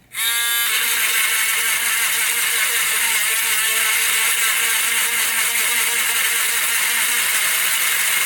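A small high-speed electric tool starts up, its whine rising in pitch over the first half-second, then runs steadily with a loud hiss.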